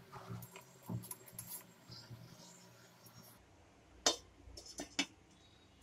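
Stainless-steel idli plates knocking lightly as the stand is set into the pan, then a glass lid clinking sharply a few times against the metal as it is put on, about four and five seconds in.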